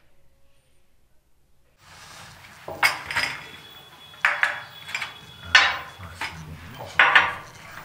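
Crockery being set down on a stone tabletop: about four sharp clinks of china cups and a bowl, starting about two seconds in.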